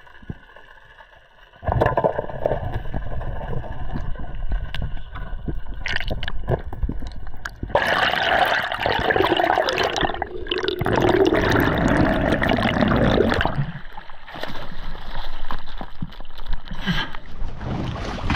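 Water gurgling and sloshing around a camera held underwater and near the surface. It starts suddenly about two seconds in, after a quiet stretch with faint steady tones.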